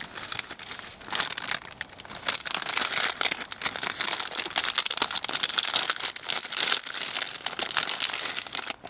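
Plastic bag of a self-heating ration pack crinkling and rustling as it is handled and opened, with dense crackles throughout and a brief break just before the end.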